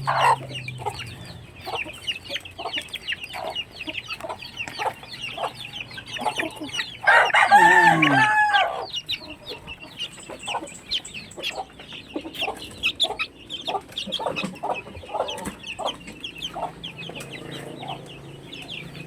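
A flock of domestic chickens clucking continuously while feeding, many short overlapping calls. About seven seconds in, a rooster crows once, the loudest sound, with a falling end.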